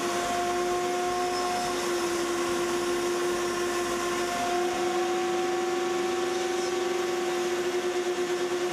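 High-speed arrow cut-off saw running with a steady whine, its abrasive wheel cutting carbon arrow shafts to length. The sound ripples slightly near the end.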